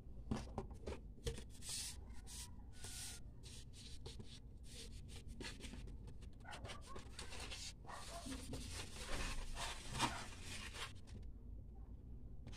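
Paper and plastic rustling and scraping as a rolled paper poster and its wrapping are handled and unrolled, in irregular bursts, with a sharp tap about ten seconds in.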